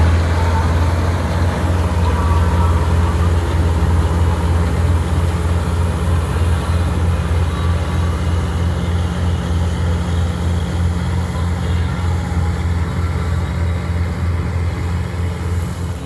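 Syan combine harvester's diesel engine running steadily under load as it cuts wheat: a deep, constant drone with a faint pulse, over a wash of threshing noise.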